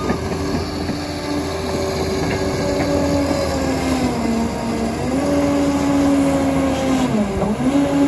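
Liebherr PR 746 crawler dozer's diesel engine running steadily, its pitch sagging a little around the middle and dipping sharply near the end before picking back up.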